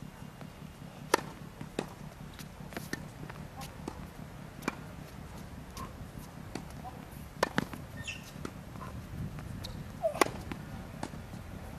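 Tennis rally: a ball being struck by rackets and bouncing on a hard court, sharp pops a couple of seconds apart, over a steady low hum.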